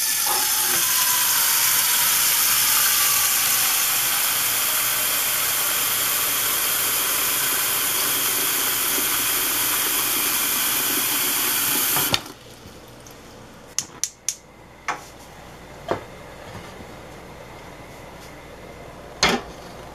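Tap water running hard into a stainless steel saucepan in a metal sink, a loud splashing rush of a pan filling, which cuts off suddenly about twelve seconds in. After that comes a much quieter steady hiss from a lit gas stove burner, with a few sharp clicks and knocks.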